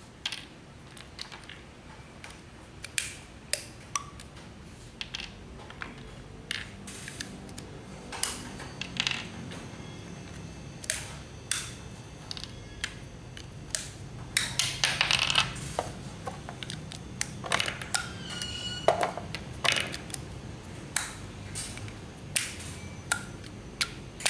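PVC one-touch air quick couplers being handled and worked by hand: irregular sharp clicks and clacks of plastic and metal parts, with a short burst of rattling about fifteen seconds in and a brief ping a little later.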